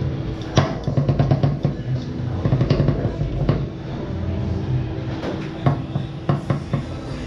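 Foosball being played on a Tornado table: the ball cracking against the men and the table walls and the rods clacking, in quick irregular clusters of sharp knocks, over a steady low hum.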